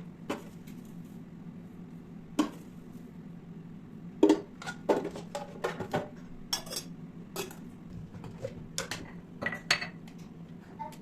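Dishes and cutlery clinking and clattering in a series of sharp knocks, a few early on and then a busy run from about four seconds in to near the end, over a steady low hum.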